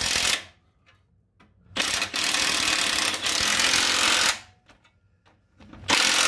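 Cordless impact wrench hammering in bursts as it tightens the exhaust clamp nuts. A short run cuts off just after the start, a longer run of about two and a half seconds begins just under two seconds in, and another begins about six seconds in.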